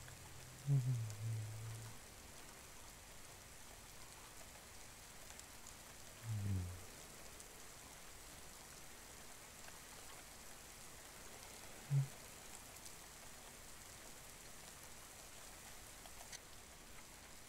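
Steady rain falling, with a man's voice making short, soft low hums close to the microphone three times: about a second in, about six seconds in and about twelve seconds in.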